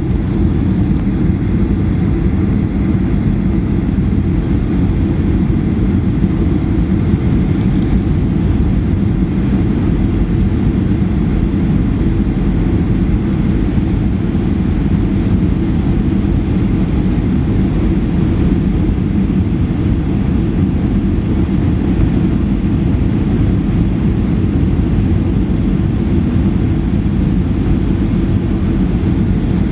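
Steady low cabin rumble of a Boeing 737-800 in flight on its approach: engine and airflow noise heard from inside the passenger cabin, even throughout with no sudden changes.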